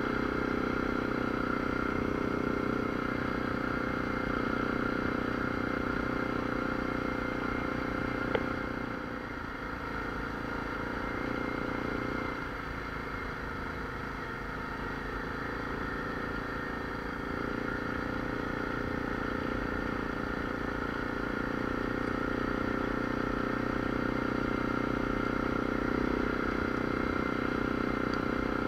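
ATV engine running steadily while riding along a trail. A brief sharp click comes about eight seconds in. The engine eases off for several seconds around the middle, then picks up again.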